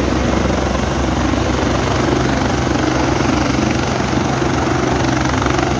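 Large turbine helicopter running on the ground after landing, main and tail rotors turning at a steady speed; the engine and rotor noise is loud and unchanging.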